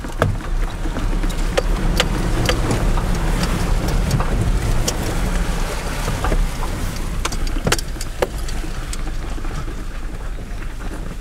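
Vehicle cabin rumble as the car drives through a flooded dirt road, with water sloshing under the wheels and a string of sharp knocks and rattles as it jolts over the ruts.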